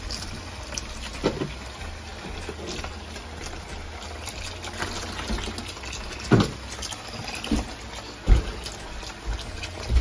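Water running from a kitchen faucet into a plastic tub in the sink, filling it, with three dull knocks along the way.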